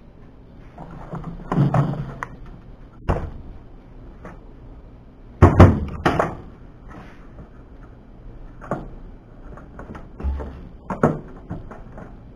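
Scattered knocks and thunks of hands moving parts and tools about a ribbed sheet-metal truck bed, the loudest pair about five and a half seconds in.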